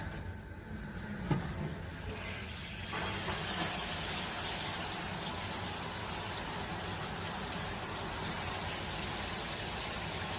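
Shower turned on: a knock about a second in, then the handheld shower head's spray comes up to full flow about three seconds in and runs as a steady hiss of water.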